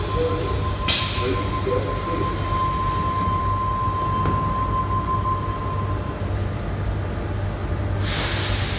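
Tangara train's sliding passenger doors closing: a sharp burst of air hiss about a second in, then a steady single-pitched warning tone for about five seconds as the doors slide shut, and another hiss of air near the end, over the train's steady low hum.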